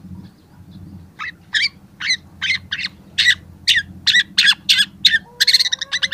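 Young long-tailed shrike singing. About a second in it starts a run of sharp repeated notes, roughly two a second, which quicken into a fast dense chatter near the end. A low steady rumble sits underneath.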